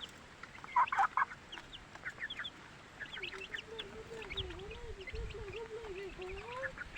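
Week-old chicks peeping, many short high chirps throughout, with a louder burst of calls about a second in. From about three seconds in, a low wavering call runs under the peeping.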